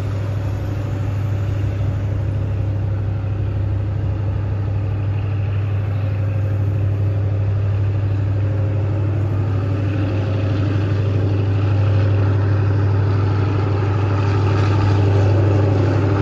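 Diesel-electric locomotive hauling an ordinary passenger train up a grade. Its engine is a steady low hum that grows gradually louder as the train approaches.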